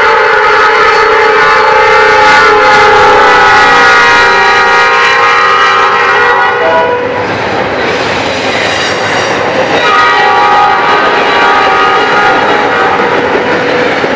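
Norfolk Southern diesel locomotive air horn sounding a chord in long, held blasts: an emergency warning laid on for a pedestrian at the grade crossing. The horn drops out for about three seconds in the middle while the passing train fills in with loud rail and wheel noise, then sounds again over the clatter of the passing double-stack container cars.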